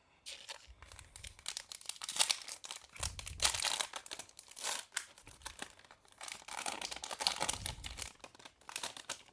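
Thin plastic crinkling and rustling, with irregular crackles throughout, as trading cards and their packaging are handled.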